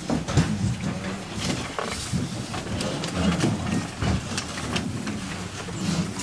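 Scattered clicks, knocks and rustling as people move about and handle papers at a wooden lectern, over low murmured voices.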